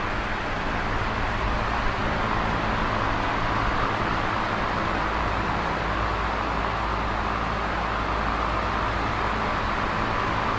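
Electric fan running steadily: a continuous whir of moving air over a low, even motor hum, with no change in speed.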